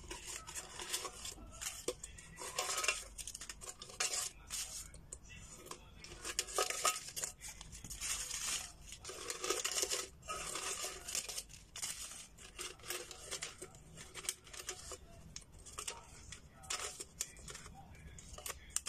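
Folded paper banknotes being pulled out through the jagged, cut-open top of a thin tin can: irregular rustling and scraping of paper against metal, with the can knocking and rattling as it is handled.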